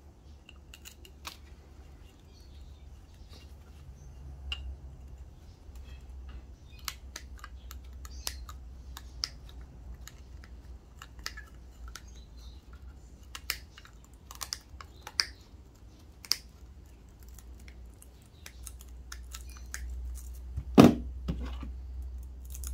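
Side cutters snipping and picking at the copper winding of a CRT deflection yoke coil: a run of scattered sharp clicks and small metal clinks over a low hum, with one louder knock near the end.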